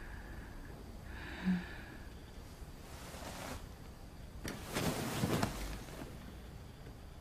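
Bedclothes rustling as a woman sits up in bed, the loudest sound, about four and a half seconds in, lasting just over a second. Before it come a soft breath and a short low thump.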